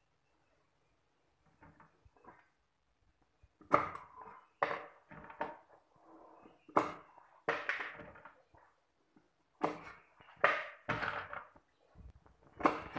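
A cleaver chopping down on a round wooden chopping block, cutting the tips off snail shells. It lands as about ten sharp, uneven chops starting about four seconds in, after a few faint taps.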